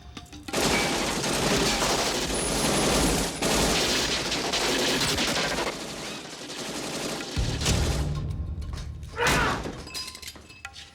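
Movie sound effect of sustained automatic gunfire, a dense volley lasting about five seconds, followed by lower rumbling and a short loud swell near the end.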